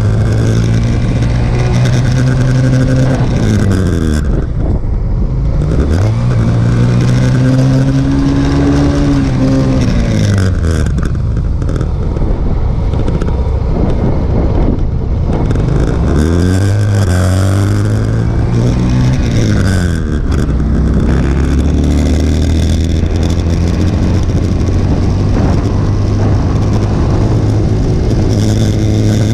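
Motorcycle engine heard from the bike: it slows, pulls away and eases off, runs low through a turn, then accelerates again about two-thirds of the way through and settles to a steady cruise. Wind and road noise run under it throughout.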